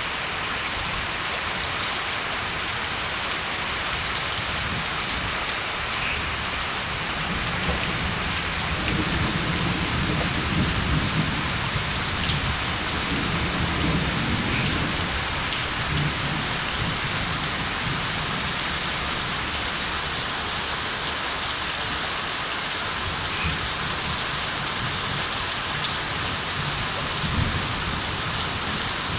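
Steady rain falling, with a low roll of distant thunder that swells about a quarter of the way in and dies away by the middle, and another brief low rumble near the end.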